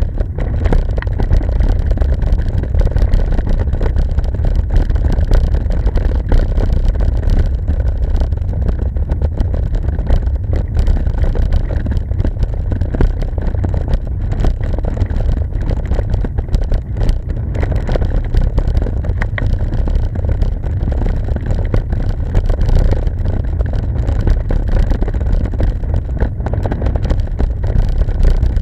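Wind buffeting an action camera's microphone on the move: a dense, fluttering low rumble that keeps up throughout.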